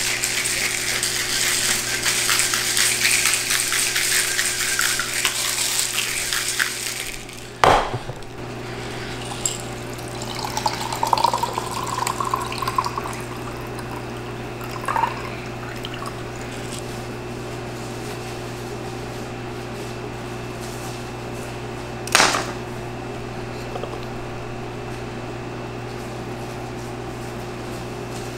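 Ice rattling hard in a stainless steel cocktail shaker being shaken for about seven seconds, ending in a sharp metallic clack. After a pause the drink is poured from the shaker into a glass, and a single knock comes near the end.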